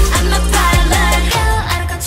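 K-pop dance track with a heavy bass line and a steady drum beat; about one and a half seconds in, the bass and drums drop out, leaving voice and synth over a thinner backing.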